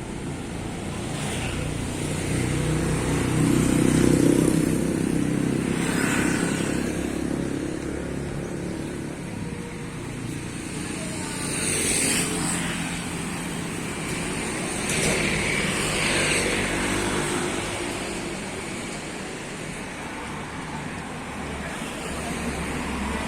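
Street traffic: vehicles passing one after another, swelling and fading over a steady rumble, with the loudest passes about four and twelve seconds in.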